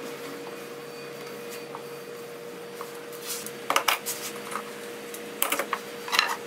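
Clear acrylic panel being handled by hand: a few sharp knocks and short scraping rubs in the second half, over a steady faint hum.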